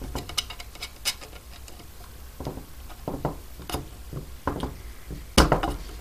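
Light metallic clicks and scrapes of a screwdriver shaft working in the cross-hole of an aluminium spinner nut as it is turned to tighten a propeller onto a brushless motor's prop adapter, with the plastic propeller being handled. The clicks come at uneven intervals, with the loudest knock about five and a half seconds in.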